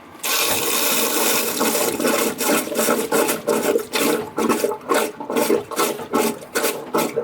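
Manual bilge pump sucking water and air up the hose from the bilge, a loud gurgling rush that starts suddenly and pulses about twice a second with the pump strokes.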